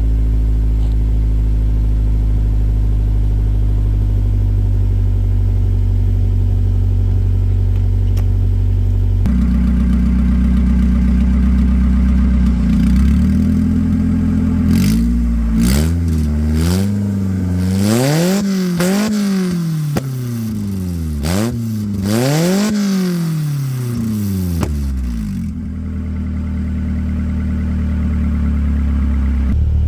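1995 Honda Civic's four-cylinder engine running through a newly welded full exhaust. It idles steadily, its idle rising slightly partway through, then is revved up and down several times in quick succession before settling back to idle near the end.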